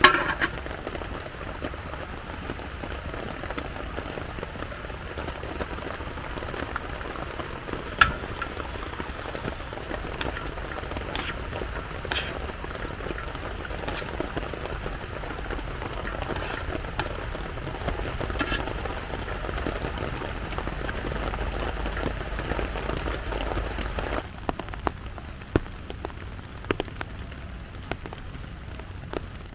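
Steady rain on a tent, with a few sharp clicks and taps scattered through it. A low rumble underneath stops abruptly about three-quarters of the way through.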